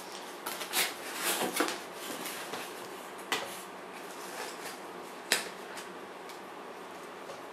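Cardboard mailer box being handled and opened: scraping and rustling of the cardboard flaps for about a second and a half near the start, then two sharp clicks, the second the loudest, as parts are lifted from the foam insert.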